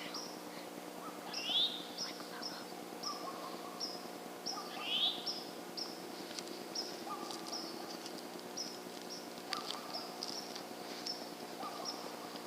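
Small birds chirping: a steady run of short, high chirps two or three times a second, with two louder upward-sweeping calls, about a second and a half in and again about five seconds in.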